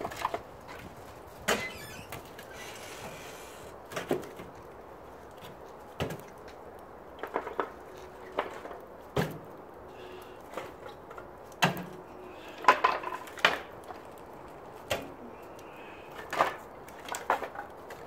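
Scattered sharp wooden knocks and clatters as split firewood is fed into the firebox of a wood-burning steel-drum stove.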